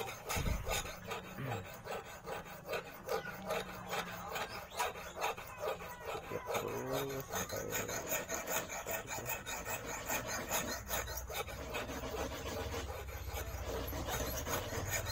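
Flat hand file rasping back and forth across a thin wire clamped in a vise, cutting the barb of an eel fishing hook: rapid, evenly repeated strokes.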